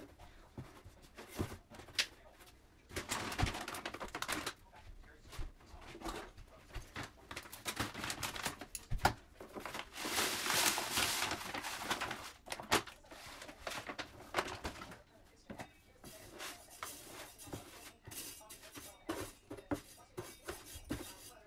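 Plastic litter-box liner rustling and being handled, then granular cat litter poured from a bag into a plastic box with a loud rushing hiss about ten seconds in. After that, a metal scoop scrapes and clicks as the litter is spread level.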